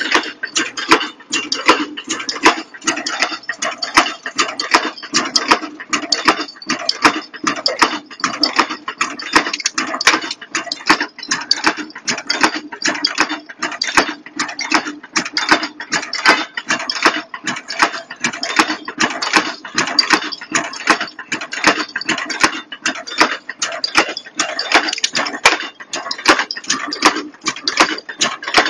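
Strapping clip (buckle) making machine running, feeding metal strip through its rollers and stamping and forming clips with a steady, fast, even clatter of metal strokes.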